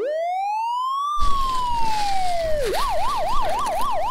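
Police car siren sound effect: a long wail that rises for about a second and then slowly falls, switching near the end to a fast yelp of about four sweeps a second. Outdoor background noise comes in under it about a second in.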